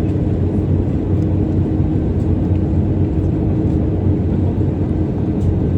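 Airliner cabin noise in flight: a steady low rumble of engine and airflow noise with a constant low hum underneath.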